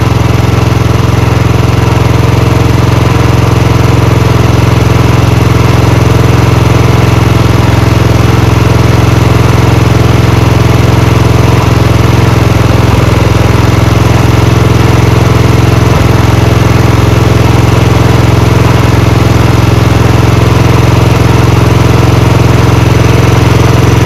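Royal Enfield Bullet 350 single-cylinder engine idling steadily and loud while its carburettor's mixture screw is turned to tune the idle.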